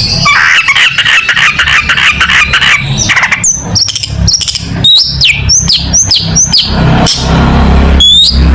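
Long-tailed shrike (cendet) singing: a rapid, scratchy chattering run, then a string of about five sharp whistled notes each sliding down in pitch.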